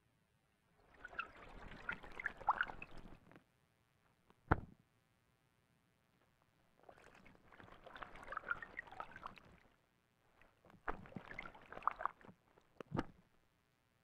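Ural owl bathing in shallow water, splashing in three bouts as it dips and shakes its feathers, with a sharp single knock between the first two bouts and another near the end.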